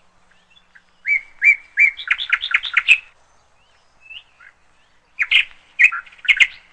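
A bird chirping in quick runs of short, sharp notes. One run starts about a second in and lasts about two seconds, and another comes near the end.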